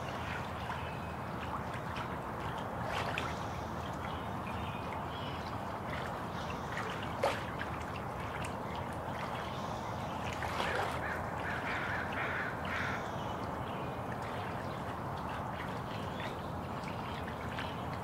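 Steady trickle of running water, with birds giving a cluster of short calls about ten to thirteen seconds in and a single sharp click about seven seconds in.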